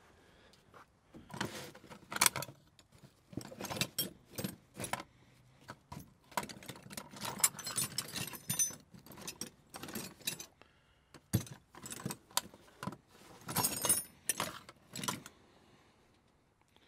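Irregular clinking and rattling of small metal tools or parts being handled, in quick clusters with a few sharp clicks, stopping near the end.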